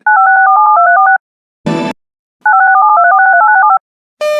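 Emergency alert data tones: two rapid strings of touch-tone (DTMF) tone pairs, each about a second long, with a short burst of static between them, sounded at the end of one alert bulletin. Near the end a repeating beep starts, about 0.7 s apart.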